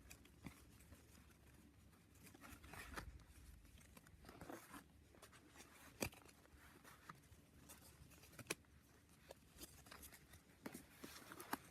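Faint handling of trading cards being lined up: quiet rustling and scattered light clicks of card against card or table, the sharpest about six seconds in and again near eight and a half seconds.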